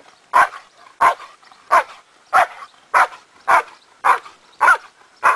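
Protection-trained working dog barking steadily in the guarding bark of a Schutzhund protection exercise: about nine loud, evenly spaced barks, a little under two a second.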